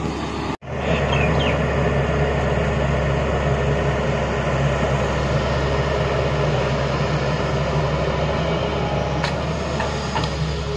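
Tata Hitachi tracked excavator's diesel engine running steadily as the machine digs in mud. The sound cuts out for an instant about half a second in, then carries on.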